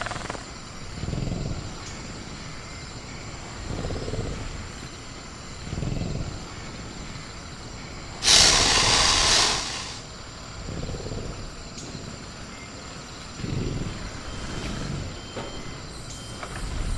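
Designed velociraptor creature sounds: a string of low growls every couple of seconds, with a loud hissing burst about eight seconds in, over a steady night-jungle background of crickets.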